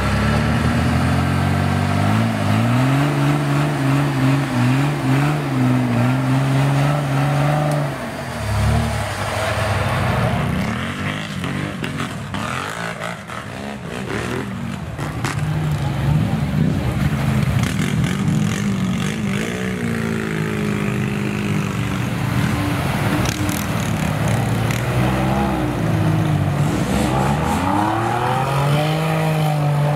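Off-road 4x4's engine revving up and down as it works through the course. The pitch rises and falls several times, with a rougher, noisier stretch about a third of the way in, before it climbs again near the end.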